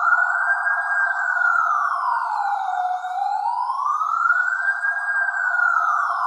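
Electronic police siren sounding a slow wail, its pitch rising and falling smoothly about once every four seconds.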